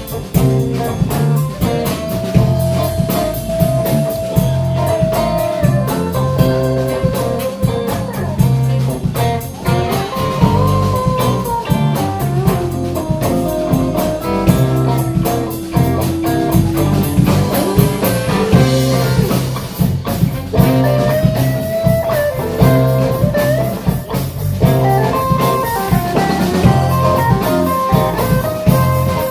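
Live blues band playing an instrumental break: a lead line of held and bent notes over a steady drum-kit and bass groove with guitar.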